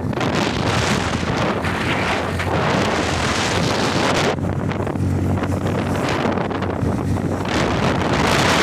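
Heavy wind rushing over the microphone of a moving motorcycle, with the engine's low drone showing through at times.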